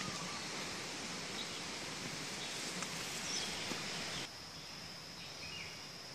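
Forest ambience: a steady hiss that drops away suddenly about four seconds in, under a steady high insect-like whine, with a few short, faint bird chirps.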